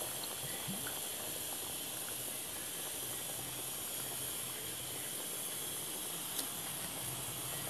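Shrimp stew simmering in a wok on a gas burner, giving a steady hiss, with a single faint tick near the end.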